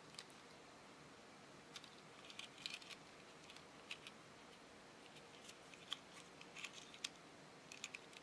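Faint, scattered clicks and light clinks as a round remote engine starter and a smart key, linked by metal split rings, are turned over in the hands.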